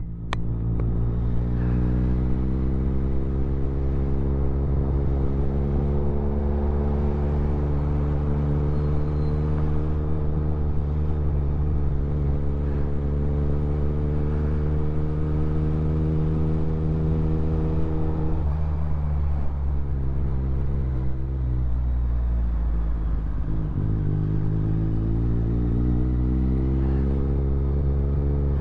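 Motorcycle engine running steadily at a fairly constant pitch. Its pitch sags for a few seconds about two-thirds of the way in, then climbs again near the end.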